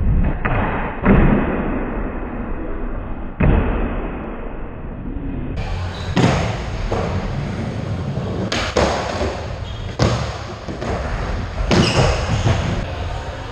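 Skateboard wheels rolling on a hard skatepark floor, with several sharp clacks and thuds of the board slapping and landing on the ground.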